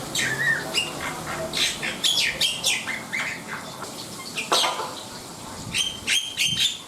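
Black-winged myna (jalak putih) in full song: a rapid, varied string of harsh squawks and sharp whistled notes, with a loud burst of calls near the end.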